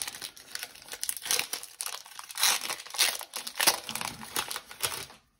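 Foil wrapper of a Pokémon TCG booster pack crinkling and tearing as it is opened by hand, in a dense run of crackles that stops near the end.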